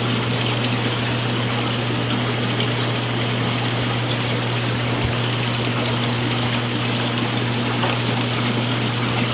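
Aquarium filtration in a fish store: steady water trickling and air bubbling from the tanks, over a constant low hum of the pumps.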